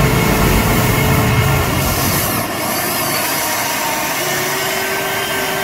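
Electric motors of a Huina 580 RC excavator running as the boom and bucket move through mud. The whine shifts pitch a couple of times as the arm's movements change.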